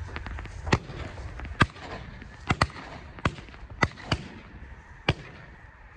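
Shotguns firing at a flock of snow geese: about eight shots over five seconds, two of them almost together, so more than one gun is firing. Under the shots is the steady calling of the huge flock overhead.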